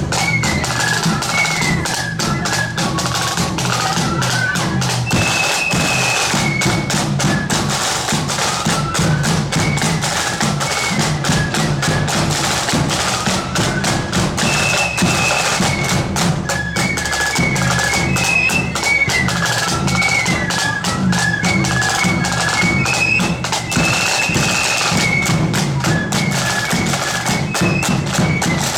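A marching flute band plays a tune over rapid snare drumming and a steady bass drum, the melody running high and bright without a break.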